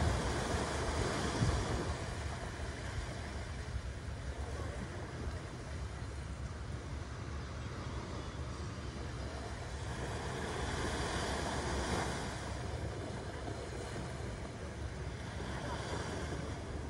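Small sea waves breaking and washing up the sand, swelling louder about a second in, again around ten seconds in, and near the end. Wind buffets the microphone with a low rumble underneath.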